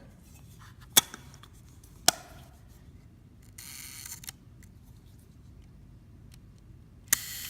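Kodak Retina I folding camera's shutter mechanism being worked: two sharp clicks a second apart, a short rasp of the mechanism being operated, then near the end a click, a buzz lasting about a second and a closing click. The shutter fires: it works.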